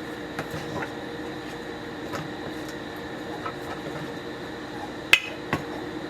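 Dishes and kitchen containers being handled: scattered light clicks and clinks over a steady hum, with two sharper knocks about five seconds in.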